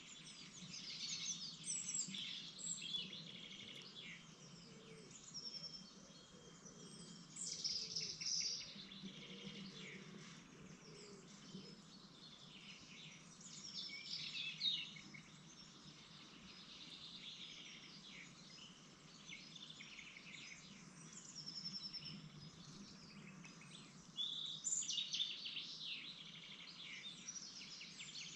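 Small songbirds calling: clusters of high chirps, short trills and quick sweeping notes, the loudest groups about a second in, around seven to nine seconds, near fifteen seconds and near the end, over a faint steady low hum.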